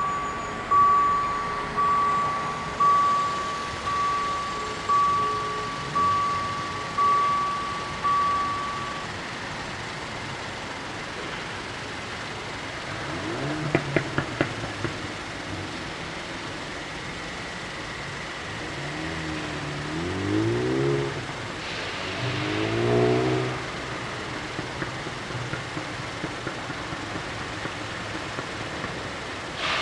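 Level-crossing warning bell ringing about once a second, stopping about nine seconds in. A few sharp clicks come about fourteen seconds in, and later a road vehicle's engine rises and falls in pitch twice.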